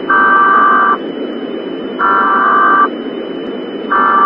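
Emergency Alert System header tones: three buzzy electronic bursts, each about a second long and a second apart, over a steady broadcast static hiss.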